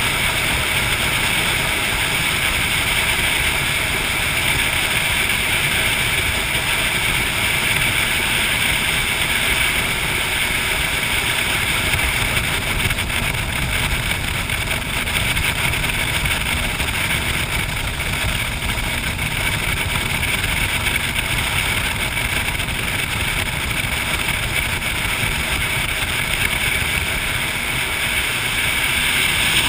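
Jet boat running steadily at speed on a river: an even engine and water-jet drone mixed with the rush of water past the hull, with no change in pace.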